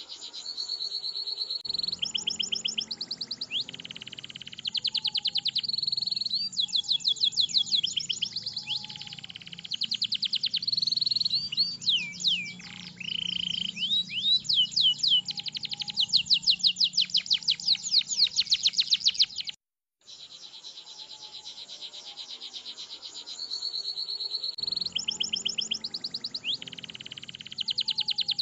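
Domestic canary singing a long rolling song: fast trills of repeated high notes, one phrase after another at changing speeds. The song breaks off for a moment about two-thirds of the way through.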